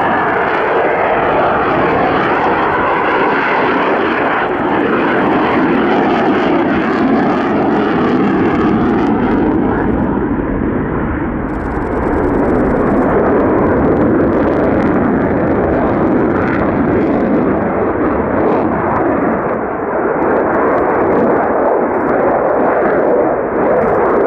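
Jet noise from a Mitsubishi F-2 fighter's single F110 turbofan as it maneuvers overhead with the afterburner lit: loud and steady, swelling at the start and dipping briefly twice as the jet turns.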